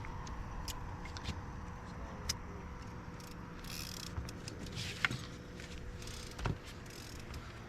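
Boat motor running steadily at trolling speed with a faint steady hum, and a few sharp clicks and knocks from fishing gear being handled.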